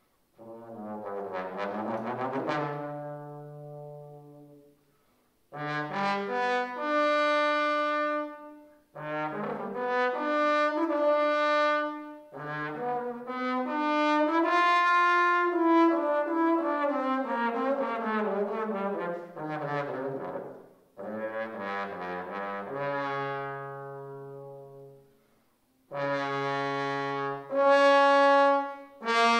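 A solo trombone playing unaccompanied: a string of phrases with short breaks for breath, moving between low held notes and higher sustained ones.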